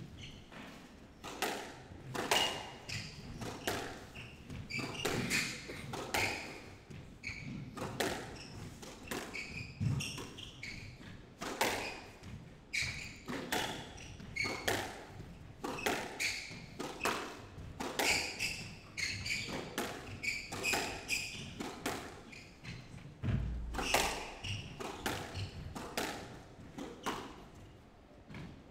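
A squash rally in play: the hard rubber ball knocks sharply off the rackets, the front wall and the floor, about once a second in a steady exchange, while the players' court shoes squeak on the wooden floor.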